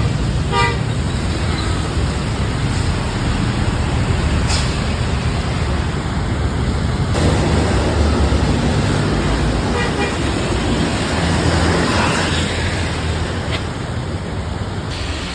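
Road traffic and passing bus engines rumbling, with two short toots from a bus's telolet air horn right at the start and a fainter toot about ten seconds in.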